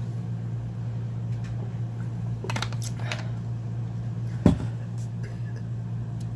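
Steady low hum of room background, with a few faint brief rustles and one sharp click about four and a half seconds in.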